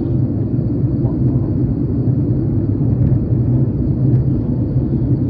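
Steady low rumble of cabin noise inside a Boeing 737 MAX 8 airliner in flight: the drone of its engines and of air rushing past the fuselage, heard from a window seat.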